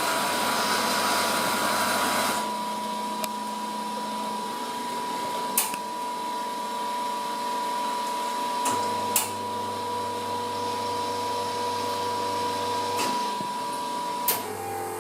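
Nuova Simonelli Talento super-automatic espresso machine running through a cappuccino cycle: a steady whine and hiss over a low motor hum that stops about two seconds in and comes back for a few seconds near the middle, with a few sharp clicks.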